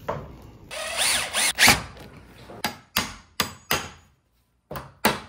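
Cordless drill-driver whirring briefly, its pitch rising and falling, as a screw goes into the bottom of a sliding door to set its roller. From halfway on comes a run of sharp taps, about three a second, broken once by a short silent gap.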